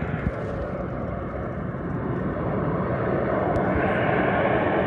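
Harrier jump jet's Rolls-Royce Pegasus turbofan, a steady jet rush growing louder as the aircraft approaches, with a brighter, higher hiss coming in near the end.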